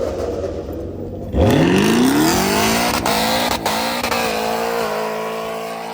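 A car engine rumbles low, then about a second and a half in it is floored: its pitch sweeps sharply up and holds high at full revs, as the car launches hard, then fades near the end.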